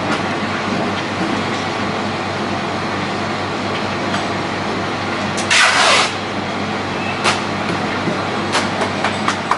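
Double-compressor soft-serve ice cream machine running with a steady hum while soft serve is drawn from its tap into a cone. A brief loud rush of noise comes about halfway through, and a few sharp clicks near the end.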